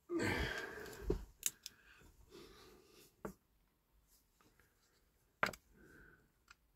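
Small handling noises at a workbench: a short rustle, then a few light separate clicks and taps as a plastic superglue bottle and a diecast model car are picked up and handled.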